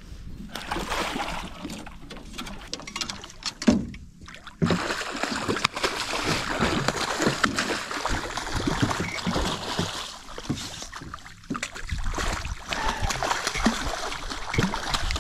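Water splashing and churning as a hooked redfish thrashes at the surface beside the boat, with one sharp knock a little under four seconds in.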